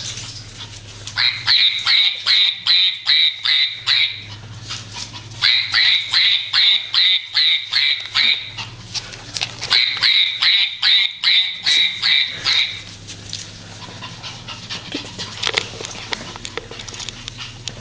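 Rhythmic high-pitched squeaks in three runs of about eight to nine, about three a second and steady in pitch, with light clicks and taps between the runs.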